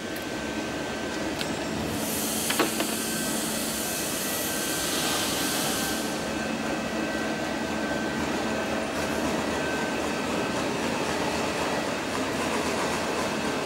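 Steady factory machinery noise with a faint hum, a burst of hissing from about two to six seconds in, and two sharp knocks in the first three seconds.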